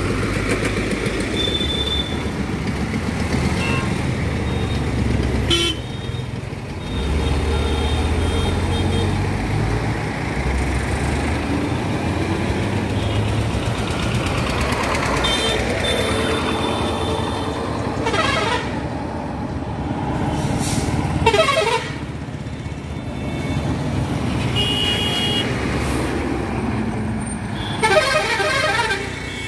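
Heavy trucks and other traffic passing on a busy highway, with a steady low rumble of engines and tyres. Horns honk repeatedly over it: short high toots, and several loud warbling multi-tone horn blasts, the loudest near the end.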